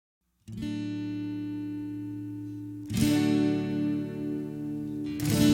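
Background music of strummed acoustic guitar chords, starting about half a second in, with new chords struck about three seconds in and again near the end.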